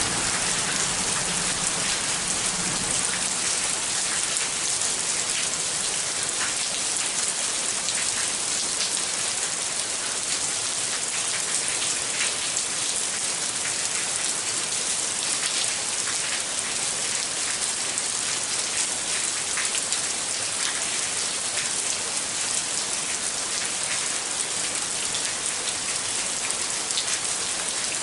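Moderate rain falling steadily: an even hiss with scattered individual drops ticking on surfaces.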